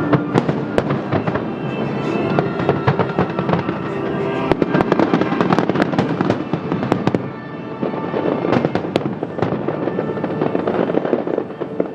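Aerial fireworks bursting in quick succession: many sharp bangs and crackles.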